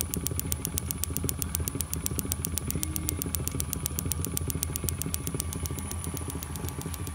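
Four spark plugs on a Rotax 912 ignition test jig firing, a rapid, even ticking of about eight sharp snaps a second. Under it runs the steady hum and whine of the VFD-driven three-phase electric motor that belt-drives the ignition.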